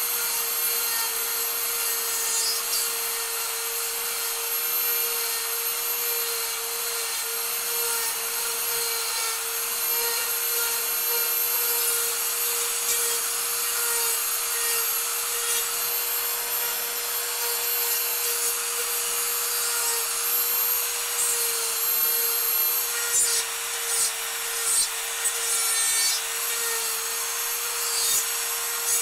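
Electric die grinder running with a steady whine, its Saburrtooth carbide taper bit rasping away wood as it shapes the carving. In the last few seconds the grinding turns more uneven, with sharper bites into the wood.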